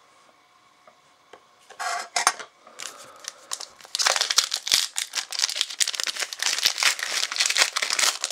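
Foil wrapper of a 2006-07 Fleer EX basketball card pack being torn open and handled: a couple of short rips about two seconds in, then dense crinkling from about four seconds in.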